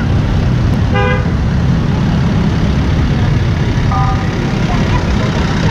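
Loud steady low outdoor rumble, with a single short horn toot about a second in and a fainter brief tone near four seconds.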